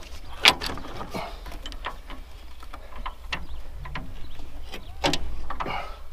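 Metal clicks and knocks from the bed-former attachment of a Yanmar TC14 walk-behind tractor as its depth setting is released and adjusted by hand, with a longer scraping clank about five seconds in.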